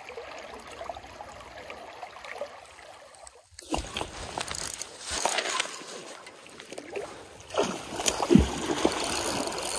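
Shallow stream water running over a riffle; after a sudden cut about three and a half seconds in, a hooked king salmon splashing and thrashing at the surface, growing louder near the end.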